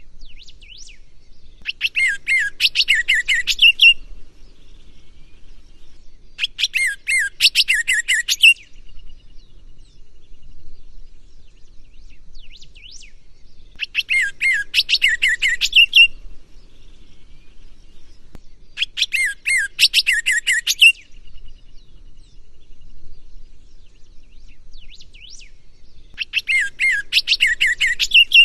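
Green-winged saltator (trinca-ferro) singing its 'gonga'-type song: five loud phrases of rapid, clear notes, each about two seconds long and ending in a brief trill, with pauses of several seconds between them.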